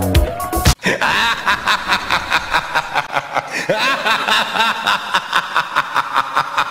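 Dance music with a beat stops under a second in, followed by rapid, evenly spaced snickering laughter, about five short bursts a second.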